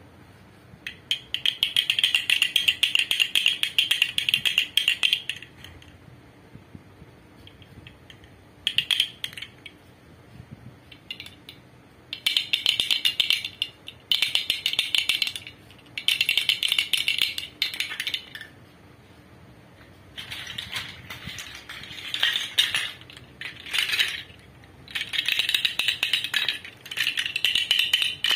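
Handmade lacquered wooden toy rattles being shaken, clattering in quick rapid-fire bursts of a second to several seconds, with short pauses between bursts.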